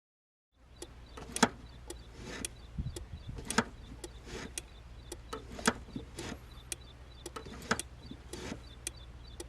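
Irregular sharp clicks and knocks over a low steady rumble, typical of handling noises inside a car cabin.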